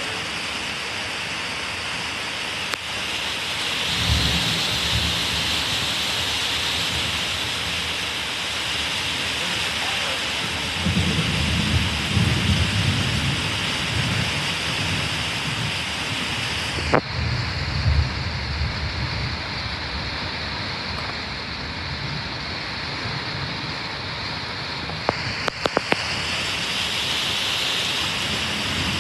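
Heavy rain pouring steadily during a thunderstorm, with thunder rumbling deeply three times. A single sharp crack comes about two-thirds of the way in, and a quick cluster of sharp clicks follows near the end.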